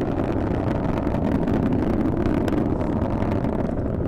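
Falcon 9 rocket's first-stage Merlin engines running at full thrust in climbing flight, a steady deep roar with a few faint crackles, as the rocket nears supersonic speed.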